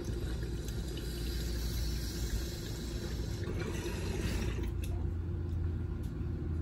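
Water bubbling steadily in a Glass Lung mason jar bong as smoke is drawn through it on a long hit.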